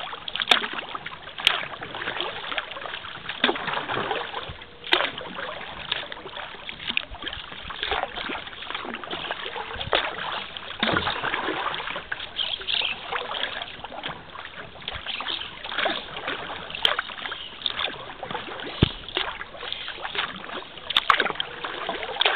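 Kayak paddle strokes: the blades dip and splash at irregular intervals of a second or two, over a steady trickle and slosh of water.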